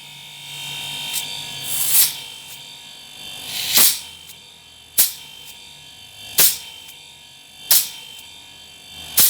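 Refrigerator compressor running with a steady electric hum, with a sharp hissing pop about every second and a half as air and oil spit from its open port.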